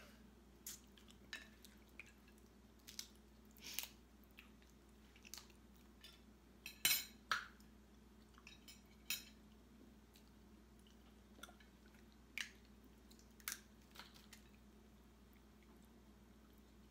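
Snow crab legs being cracked and picked apart by hand: scattered sharp cracks and clicks of shell, the loudest pair about seven seconds in, with faint chewing and plate sounds in between.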